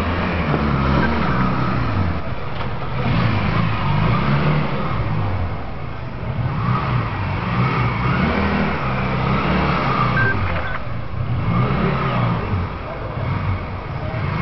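Motorcycle engine revving up and dropping back again and again, every few seconds, as it is ridden at low speed through a tight cone course.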